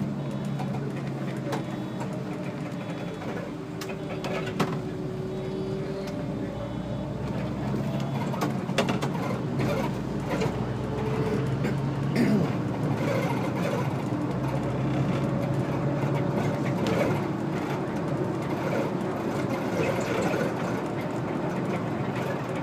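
SOR NB 12 City city bus driving, its engine running steadily, heard from inside the driver's cab with scattered clicks and rattles from the cabin.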